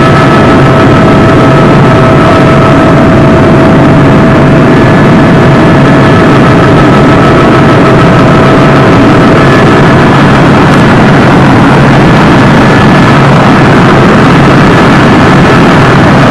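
Helicopter in flight heard from inside the cabin: a loud, steady wash of turbine and rotor noise with a few steady whining tones, one of which drops out about ten seconds in.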